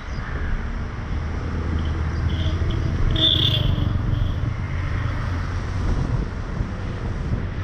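A vehicle driving along a wet road: a steady low rumble of engine and tyres with wind on the microphone. A brief high-pitched sound rises above it about three seconds in.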